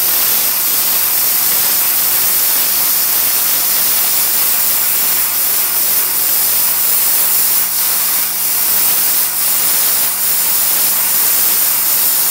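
Air-plasma cutter cutting steadily: an even, loud hiss from the plasma arc and its compressed-air jet, fed by a separate air compressor. A low steady hum runs underneath.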